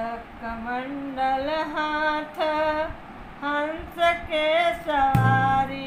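A woman singing a Hindi devotional bhajan to Gayatri Mata in slow, held phrases. About five seconds in, a low steady instrumental accompaniment comes in beneath her voice.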